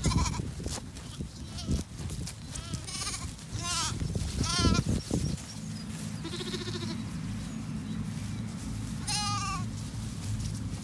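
Several bottle-fed Zwartbles lambs bleating: about six short, wavering calls scattered through, over a steady low rumble.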